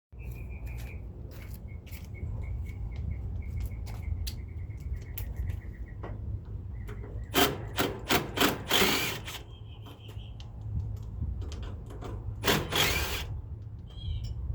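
Loud scraping and rubbing in two spells, one about halfway through and one near the end, over a steady low rumble, with a faint high chirping repeating in the first half.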